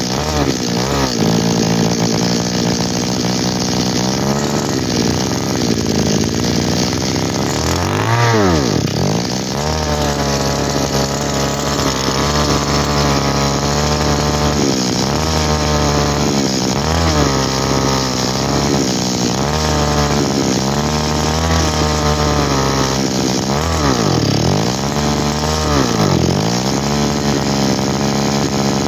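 Komatsu 26 cc two-stroke brush-cutter engine running, its speed stepping up and down. A few times the pitch drops sharply and recovers. The stumbling is typical of a slightly lean carburettor, which the seller says probably just needs a little adjusting.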